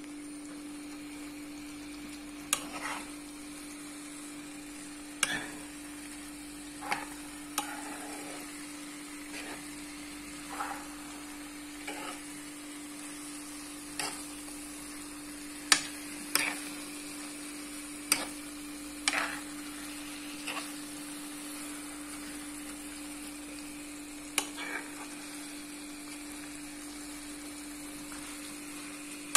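A spoon stirring and scraping grated zucchini and egg in a frying pan, with sharp taps against the pan every second or two over a steady sizzle.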